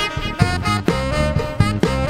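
A band playing an upbeat tune in a swing style: a held melody line over a walking bass and regular drum beats.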